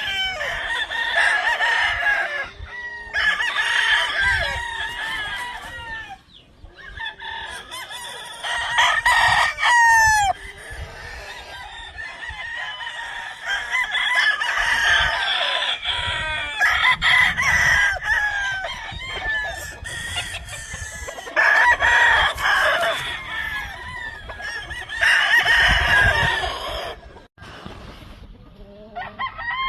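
Several gamefowl roosters crowing in turn and over one another, one crow after another through the whole stretch, with some clucking between.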